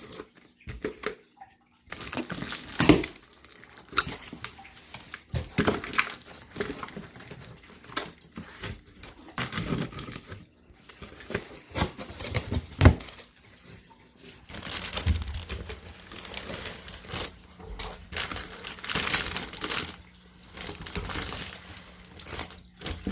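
A boxed memory foam mattress being opened and unpacked: irregular crinkling, tearing and scraping of cardboard and plastic wrapping, in bursts with short pauses.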